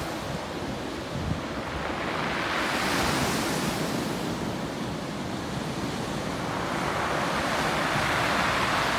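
Sea waves washing up a shingle beach, the backwash dragging and rattling the pebbles as the water recedes, swelling and easing with each wave.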